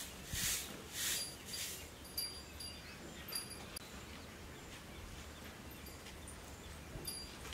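Three hissing squirts about half a second apart as a cow is milked by hand, then a faint outdoor background with a few short, high bird chirps.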